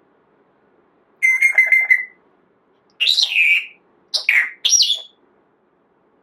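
Pet parrot vocalising in three loud bursts. First comes a quick run of beep-like repeated notes, then a whistle falling in pitch, then two short whistled calls, the first falling and the second rising.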